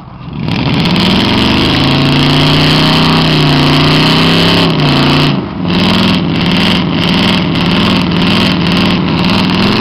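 Pickup truck engine revving hard at high throttle under heavy load while towing a truck stuck in mud. The engine comes in suddenly right at the start and holds a high, steady pitch. About five seconds in it drops briefly, then the revs rise and fall unevenly.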